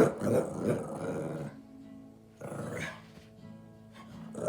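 Dog growling in short bouts while at play, over music playing in the background.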